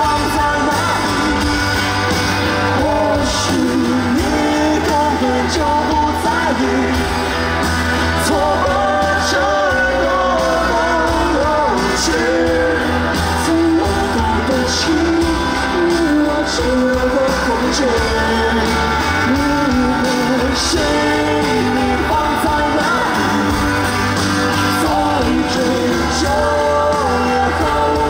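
Live pop-rock band music with a singer's voice carrying the melody over a steady bass line.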